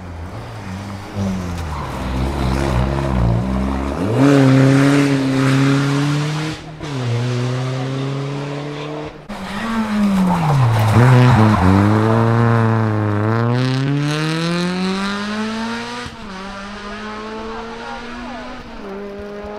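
Rally car engine revving hard on a special stage, its pitch climbing and dropping sharply several times at gear changes and lifts. Later the pitch falls over several seconds and settles to a lower, steadier note.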